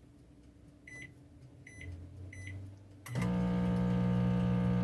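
Electrolux MEF28 microwave oven: three short keypad beeps, then about three seconds in a loud, steady electrical hum starts. This is the fault noise that trips the circuit breaker; the technician suspects the high-voltage capacitor.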